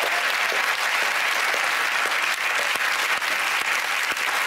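Studio audience applauding steadily, a dense clatter of many hands clapping at once.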